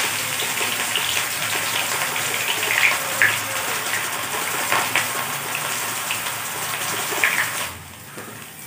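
Hot oil in a karahi sizzling hard as raw potato is grated straight into it in thin shreds, with the short scrapes of the hand grater over the hiss. The sizzle drops off sharply shortly before the end, as the grating stops and the shreds are turned with a spatula.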